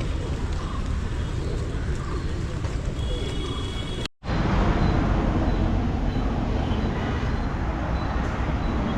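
Road traffic noise: a steady rumble of passing vehicles, broken by a brief dropout about four seconds in.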